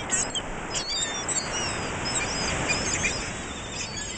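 A flock of seagulls crowding in to be fed, many short high calls overlapping, over a steady rushing background noise.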